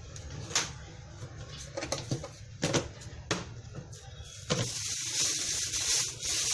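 Scattered crinkles and clicks from groceries being handled, then from about four and a half seconds in a steady hiss.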